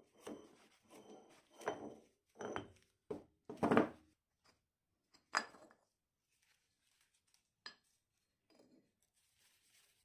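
A cast-iron flange being worked off the spindle of an old dividing head and handled: a string of short metallic clinks, knocks and scrapes of iron on iron with a faint ring, loudest about four and five seconds in, then a single sharp click near eight seconds.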